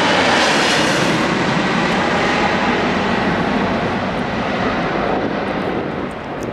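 Jet airliner engines at go-around thrust as a Boeing 767-300ER with Pratt & Whitney PW4060 turbofans passes overhead and climbs away after an aborted landing. A loud, steady jet noise with a faint fan whine, fading and losing its high hiss as the aircraft recedes.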